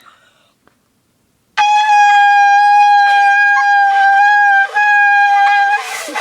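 A shofar (ram's horn) blown in one long, steady, held note, starting about a second and a half in, with a brief break partway through. Near the end the note wavers and trails off as the blower runs out of breath.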